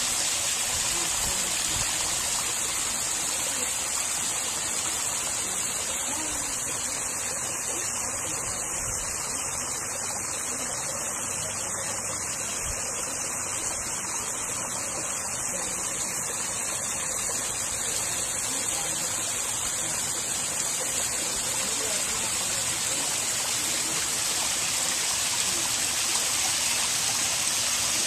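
Garden pond waterfall: water spilling steadily over rocks into a backyard pond, a constant, even rush of falling water.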